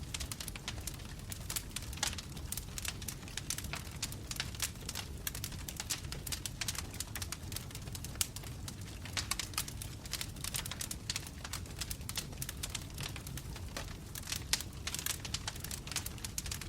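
Wood logs burning in a fireplace, crackling and popping over a low steady rumble of the flames; the crackles come thicker in clusters.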